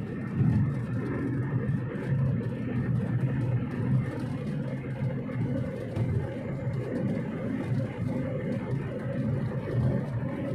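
Road vehicle on the move: a steady engine and road rumble that swells and eases slightly, with a faint steady hum above it.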